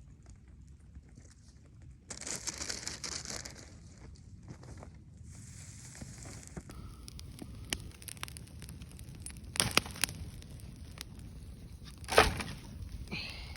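Crinkling, rustling handling noises in two stretches, followed by scattered sharp clicks and one loud knock or crack about twelve seconds in.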